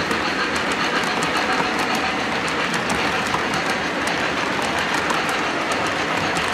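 A model train of MTH flatcars rolling past on the layout's track: a steady rumble of wheels with quick, uneven clicking over the rail joints.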